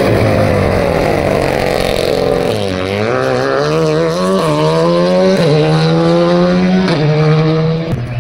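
Renault Clio rally car's engine at full throttle going past. Its pitch falls as it goes by, then climbs in steps as it changes up through the gears several times, accelerating away.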